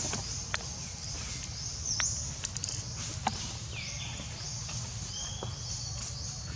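Outdoor ambience: small birds calling over and over with short high chirps, over a steady low rumble, with a few brief sharp ticks.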